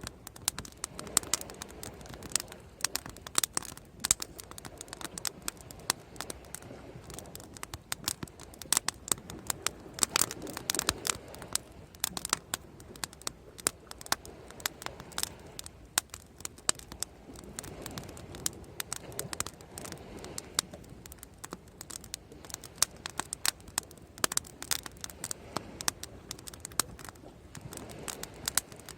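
Wood bonfire crackling and popping: quick, irregular sharp snaps over a soft low rush that swells now and then.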